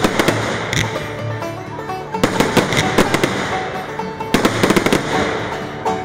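Fireworks display going off in three clusters of rapid bangs and crackles, about two seconds apart, with music playing underneath.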